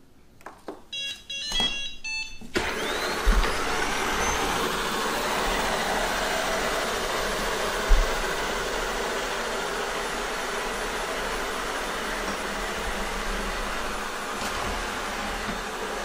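Shark ION robot vacuum beeping a few short electronic tones as its clean button is pressed. Its suction motor and brushes start suddenly about two and a half seconds in and run steadily, with a brief thump about eight seconds in.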